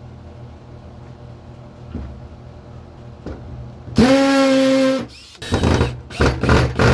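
Electric drill motor spinning up and running steadily for about a second, drilling into oak, followed by several short rough bursts of drilling or screw-driving.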